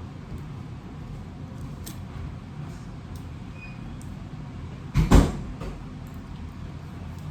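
A door banging shut: two heavy thumps in quick succession about five seconds in, over a low steady hum.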